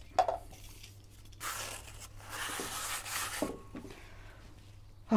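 Aerosol can of brake cleaner spraying in two hissing bursts, a short one and then a longer one of about a second.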